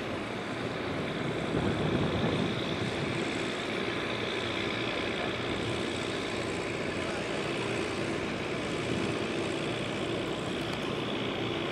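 Boat engine running steadily as the vessel passes on the water, a constant hum over a wash of noise, a little louder about two seconds in.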